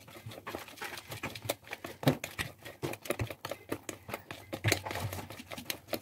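Thick chocolate cake batter being stirred fast by hand in a plastic bowl: a quick, irregular run of wet clicks and taps as the utensil churns the batter and knocks the bowl's sides.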